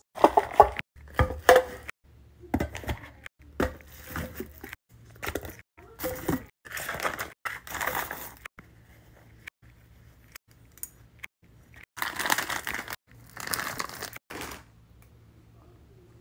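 Plastic snack bags and packaging crinkling and rustling as food items are handled and packed into an insulated lunch bag, in irregular bursts with short pauses between them.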